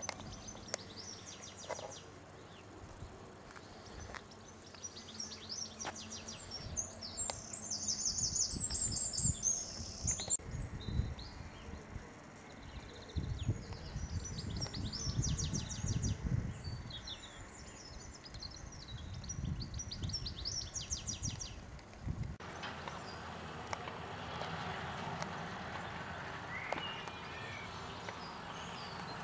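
Small birds singing in repeated short, rapid high trills and chirps, over a low, uneven rumble on the microphone. About 22 seconds in, the birdsong stops and a steady hiss takes over.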